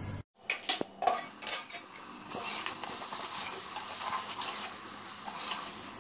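A metal spoon stirs and scrapes through mutton, bitter gourd and onions frying in an aluminium pressure-cooker pot. There are a few sharp metal clinks in the first second, then steady sizzling with the spoon scraping the pot.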